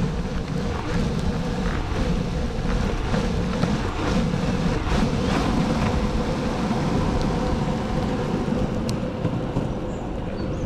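Longboard wheels rolling steadily over pavement: a continuous low rumble with a faint steady hum and a few light clicks.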